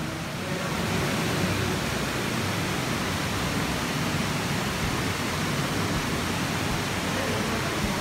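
Steady rushing of a waterfall, an even wash of water noise that grows a little louder about a second in.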